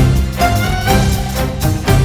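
Background music with violin and a steady beat.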